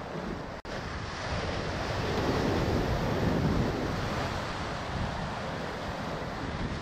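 Ocean surf washing and breaking against shoreline rocks, with wind buffeting the microphone; the surf swells louder about two seconds in.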